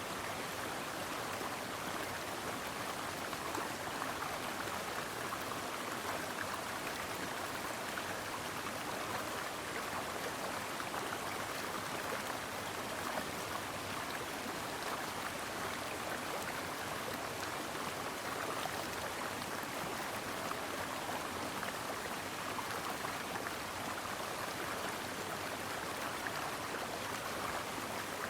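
Stream water flowing over rocks, a steady, even babbling rush with no breaks.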